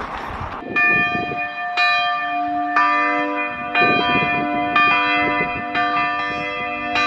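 Church bells ringing, about one strike a second, each stroke's tone ringing on and overlapping the next.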